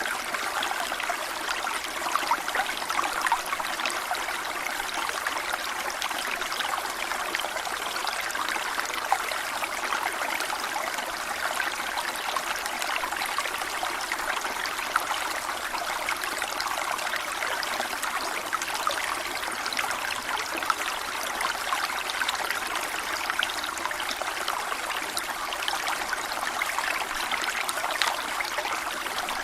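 A small stream flowing and trickling over stones, a steady babbling water sound with fine splashing detail.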